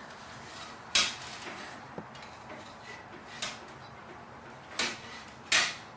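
A handful of short, sharp clicks and knocks as a motion-decoy wing and its clip hardware are handled, the loudest near the end.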